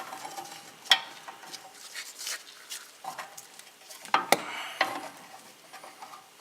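Light metal clinks and scrapes of a hook being hung between the brake caliper and the coil spring, with sharper knocks about a second in and again just past four seconds.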